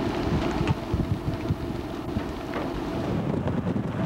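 Wind gusting over a camcorder microphone: a rough rushing noise with many short low thumps. About three seconds in the sound turns duller, losing its hiss.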